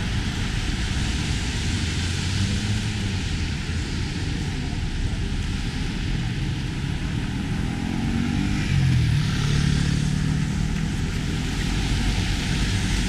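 City street traffic on a wet road: a steady hiss of tyres with engine hum. About eight to nine seconds in, a vehicle's engine rises in pitch and gets louder, then holds.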